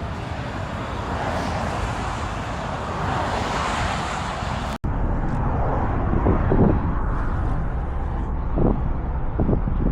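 Steady outdoor rumble with wind noise on the microphone. It cuts off abruptly about five seconds in and resumes with short low thumps of wind buffeting the microphone.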